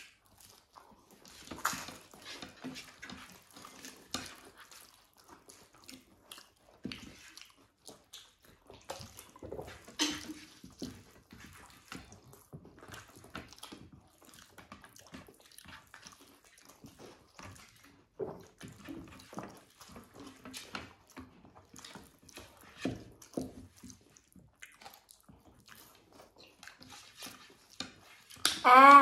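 People eating khichuri and papad: scattered wet chewing and mouth sounds with short clicks and crunches. A voice hums loudly at the very end.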